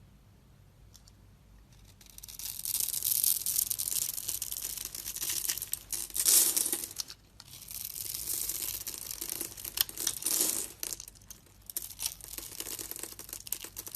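A knife cutting and scraping through a bar of soap, a dense, grainy, high-pitched scraping full of small crackles. It starts about two seconds in, breaks off briefly around the middle, then goes on with scattered sharper scrapes.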